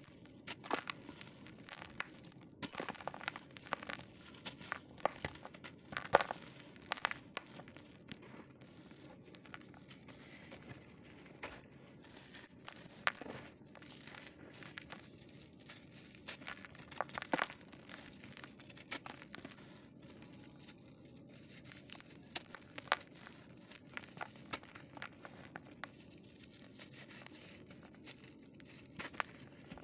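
Hands crushing lumps of super-dry dirt and sifting the powder into a plastic basin: irregular dry crunches and crackles, with soft trickling between them.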